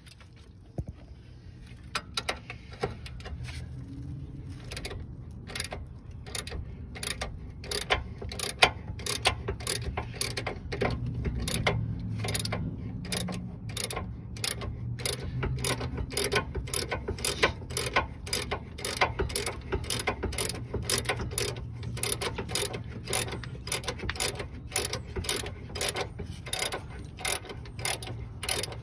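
Hand ratchet clicking as it backs out the bottom brake caliper bracket bolt. The clicks come irregularly at first, then settle from about five seconds in to a steady rhythm of roughly two a second.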